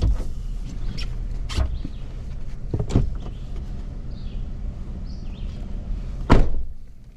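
Chevrolet Silverado Trail Boss pickup idling, heard from inside the cab, with a few knocks as the driver shifts about at the open door. Near the end the driver's door shuts with a loud thud and the sound becomes quieter.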